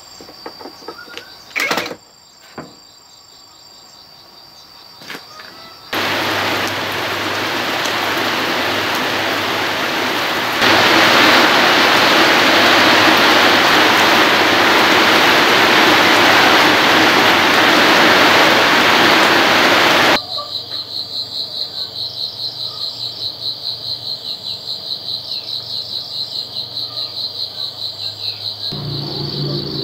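A few sharp knocks, then heavy rain falling on wet ground and puddles. The rain starts suddenly, with a steady hiss that grows heavier after about five seconds and cuts off abruptly. After that comes a loud, high, rhythmic insect trill, pulsing several times a second.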